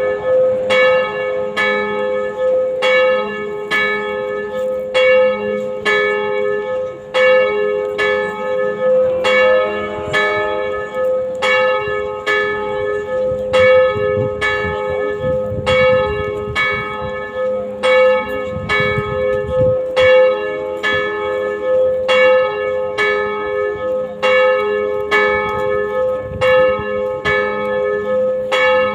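Church bells tolling for a funeral, two or more bells of different pitch struck in an even, unbroken run about every half second, each stroke ringing on into the next.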